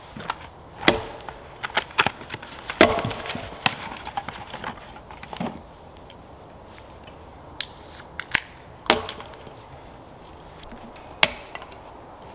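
Small axe chopping wood: irregular sharp knocks of the blade striking and splitting logs, bunched in the first few seconds with a few more spaced out later.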